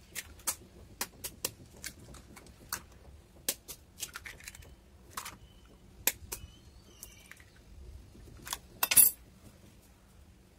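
Eggs being cracked open with a metal spoon over a plastic mixing bowl: a run of sharp taps and clicks, with a louder cluster of knocks about nine seconds in.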